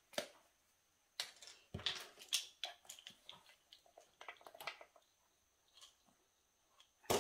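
Light clicks and taps from a spice jar and a plastic measuring spoon handled over a glass mixing bowl as cinnamon is measured out, with a louder click near the end.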